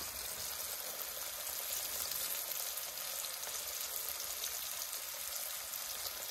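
Walleye chunks frying in a big pan of vegetable oil: a steady sizzle of bubbling hot oil.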